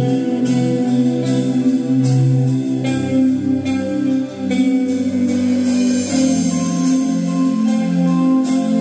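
Band music with guitar and bass over a steady beat.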